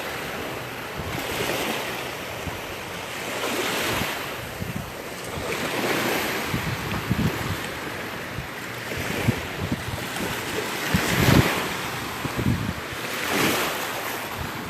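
Gulf of Mexico surf washing onto a sandy beach, swelling and falling every two to three seconds, with wind buffeting the microphone in gusts, the strongest about 11 seconds in.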